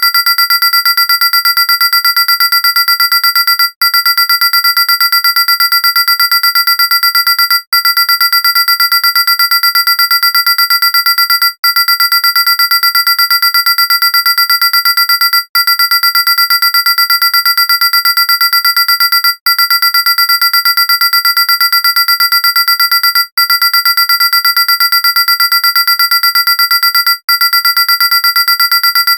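Synthesized science-fiction alarm: a loud, harsh buzzing warning tone, high-pitched with many overtones. It breaks off briefly about every four seconds and starts again.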